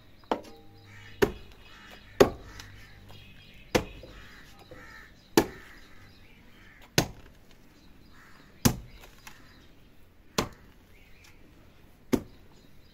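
A long-handled hoe chopping into dry, hard-packed earth, about nine sharp strikes at a steady pace of one every second and a half or so, breaking up the soil.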